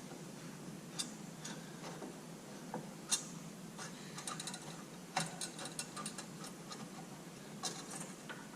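Hand tool turning out a dry, unlubricated headlight-trim screw on a Jeep YJ, making irregular clicks and small scrapes.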